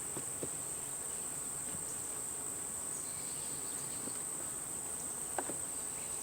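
Insects buzzing steadily around an opened beehive of honeybees, with a steady high-pitched drone over a low hum. A few faint clicks come near the start and a little after five seconds in.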